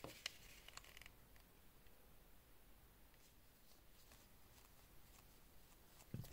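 Faint handling of a wristwatch: a few small clicks and a brief rub in the first second, then soft cloth wiping against the case that is barely audible, and one soft knock near the end.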